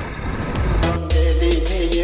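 Motorcycle riding noise, engine and wind, for the first moment. Under a second in, music with a strong bass and a steady beat comes in and takes over.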